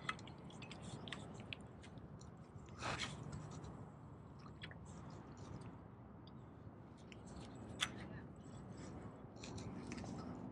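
Faint scattered clicks and short scrapes of a spinning rod and reel being handled while a lure is worked, over a low rumble. The sharpest clicks come right at the start and about eight seconds in.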